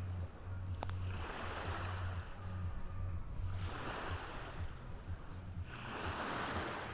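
Ocean surf: waves breaking and washing up the beach, each swelling and fading about every two and a half seconds over a steady low rumble.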